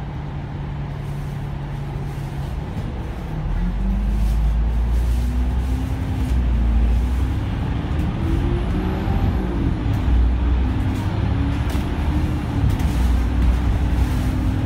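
Alexander Dennis Enviro500 MMC double-decker bus engine, heard from inside the bus, idling, then from about three and a half seconds in pulling away under load up a climb. It gets louder and rises in pitch, dips once in the middle, then holds at a steady, higher pitch.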